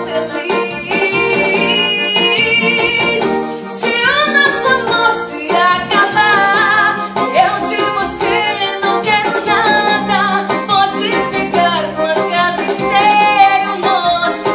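A woman singing a song in Portuguese while playing a Yamaha electronic keyboard, its accompaniment carrying a plucked, guitar-like sound under the melody.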